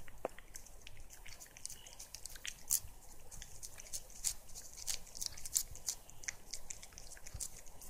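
Cat licking a purée treat from a hand-held tube: quick, irregular wet clicks and smacks of tongue and mouth, several a second.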